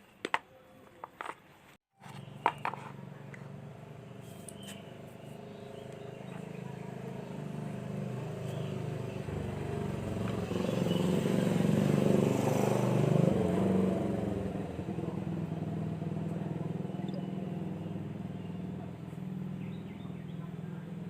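A motor vehicle's engine running, a steady low drone that swells to its loudest about halfway through and then slowly fades, as a vehicle passing by. A few sharp clicks come just before it starts.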